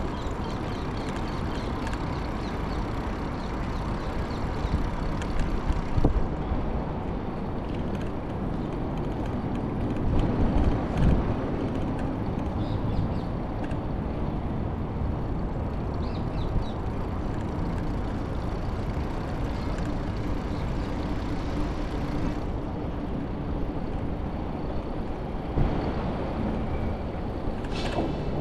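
Steady rushing wind noise on the microphone of a bike-mounted camera while cycling, with heavier buffeting about five and eleven seconds in.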